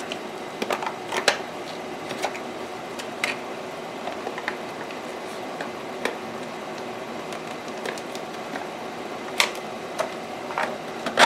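Thin vacuum-formed plastic sheet crackling and clicking as it is flexed and pried off a 3D-printed buck by hand, with a couple of sharper snaps near the end, over a steady background hum.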